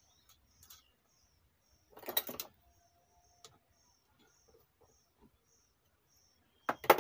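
Hand tools clattering on a workbench: a rattling cluster about two seconds in and sharp clicks near the end as a screwdriver is picked up from and put back among other tools. A faint high chirp repeats about twice a second underneath.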